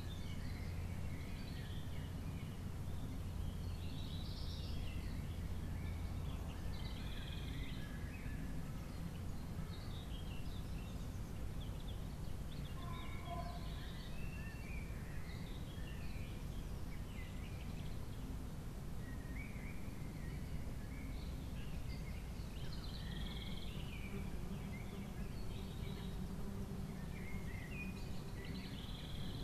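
Outdoor ambience: a steady low rumble with short, scattered bird chirps and calls throughout. The rumble is stronger in the first few seconds.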